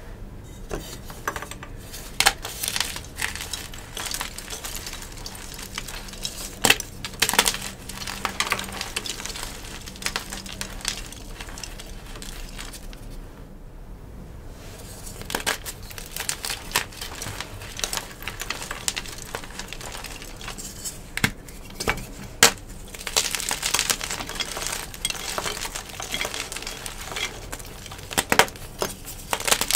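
Gym chalk blocks crushed and squeezed by hand, crumbling into powder with a soft crunch and many irregular sharp crackles; the crackling thins out briefly about halfway and grows denser near the end.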